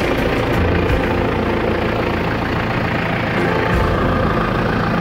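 John Deere tractor's diesel engine running steadily as the tractor drives along.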